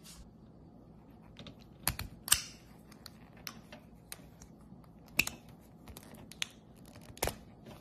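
Irregular small plastic clicks and ticks as a mini retractable utility knife is handled and its blade worked against a plastic zip tie on a charger cable, the sharpest clicks a little after 2 s, around 5 s and around 7 s.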